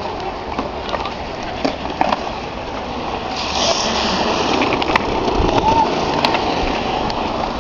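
Skateboard wheels rolling on concrete, with a brief scraping hiss a few seconds in and two sharp clacks near the end.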